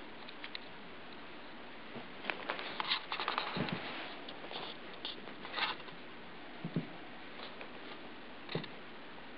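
A small Cockapoo puppy's paws pattering and scratching on carpet: a scatter of light, quick clicks, busiest between about two and six seconds in, with a single soft thud in the middle.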